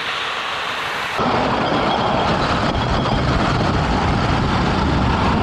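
Electric snow racer running fast on rink ice: its chain-driven rear wheel, studded with screws for traction, grinding across the ice as a steady rushing noise, which gets louder about a second in.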